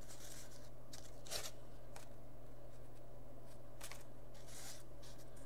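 Painted index cards being handled: a few short rustles and scrapes of card stock sliding against other cards and the table, over a steady low hum.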